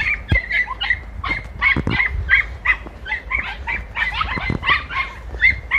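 Young podenco hounds yelping in a rapid, overlapping chorus, several high-pitched yelps a second, as they give tongue while chasing game through brambles.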